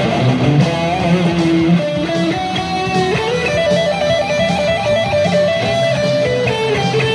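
Ibanez electric guitar played through an amplifier: a single-note lead melody of held notes that slide and waver in pitch.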